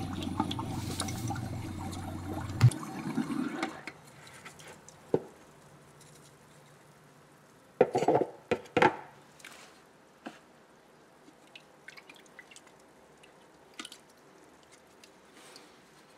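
Water churning in a bucket as a freshly cast investment flask is quenched and stirred, the plaster investment breaking apart; the churning dies down after three or four seconds. A burst of splashes comes about eight seconds in, then scattered drips and small splashes.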